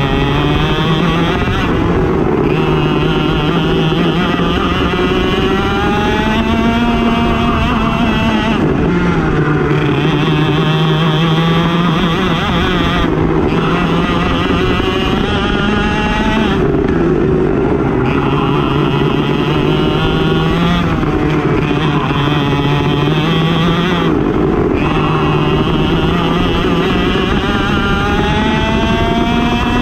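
Two-stroke racing kart engine at full throttle, its pitch climbing steadily along each straight, then dropping sharply as the driver briefly lifts for a corner, about every four seconds.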